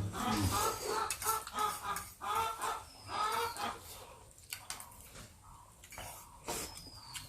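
Short, quickly repeated muffled vocal noises for about the first three seconds, then quieter scattered light clicks.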